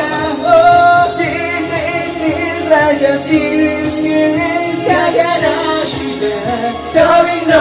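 Karaoke singing: a man singing into a handheld microphone over a recorded pop backing track.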